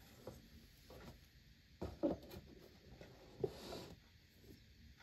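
Soft taps and knocks of an iPhone 15 Pro Max's cardboard retail box and its insert tray being handled and set down on a wooden table. The loudest knocks come about two seconds in and about three and a half seconds in, the second followed by a short sliding rustle of cardboard.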